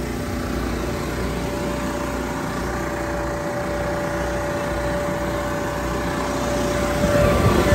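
A small engine running steadily, growing louder near the end.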